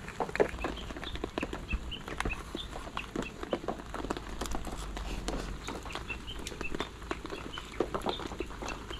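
Eating sounds: utensils clicking and scraping in an aluminium mess tin, with small birds chirping repeatedly.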